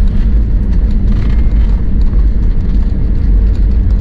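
Passenger jet cabin noise: a loud, steady low rumble of engines and rushing air.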